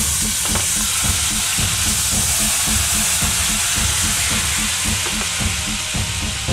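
Balsamic vinegar hitting a hot frying pan with garlic, sizzling and hissing steadily as it boils off in steam. Background music with a steady beat runs underneath.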